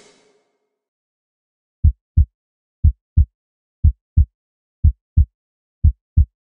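Heartbeat sound effect: low double thumps in a lub-dub rhythm, about one pair a second, starting about two seconds in.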